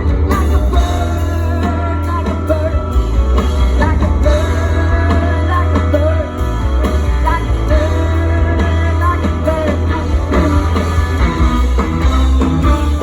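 Live rock band music, with heavy bass and a wavering melody line on top.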